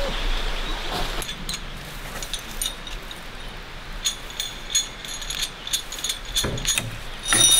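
Metal clinks and clanks from a hand winch tensioner and steel cable fittings on a zip line being worked by hand. The clinks are sharp and ringing, uneven, and start about a second in, with the loudest cluster near the end.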